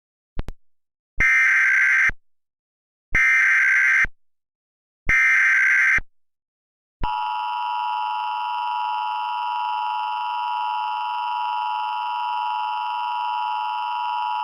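Emergency Alert System (EAS) header: three bursts of data tones, each about a second long with a second's gap between them. Then the EAS two-tone attention signal sounds steadily for about eight seconds, signalling that an emergency message follows. A brief click comes just before the bursts.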